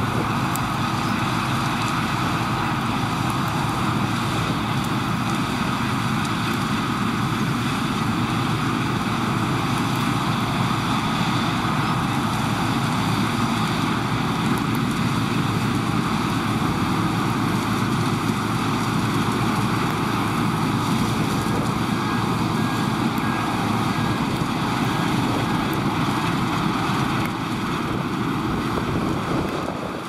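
Claas Lexion 480 combine harvester running under load while harvesting and unloading grain into a chaser bin, with a Ford New Holland 8970 tractor running alongside: a steady machinery noise.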